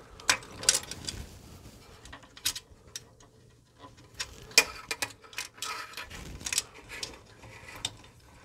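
Irregular small clicks and taps of hands fitting wires into a screw terminal block inside a metal control box, with wire ends and fittings knocking against the terminals and the enclosure.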